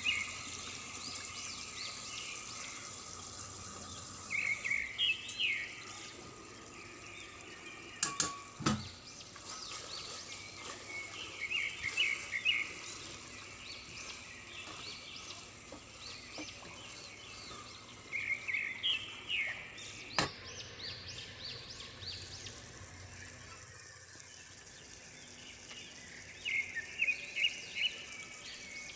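A bird chirping in short bursts every few seconds over a steady background hiss, with a sharp click about 8 seconds in and another about 20 seconds in.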